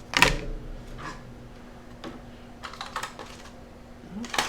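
Scattered sharp clicks and taps of small hard parts being handled: a loud one just after the start, a quick cluster around the middle, and another loud one near the end.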